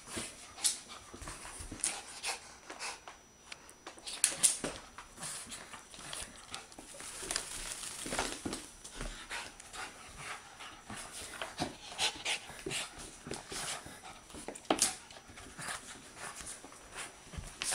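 Pomeranian panting as it rubs itself dry and scrambles about on a bath towel on a hardwood floor, the towel rustling in irregular bursts with quick clicks and a few sharper knocks.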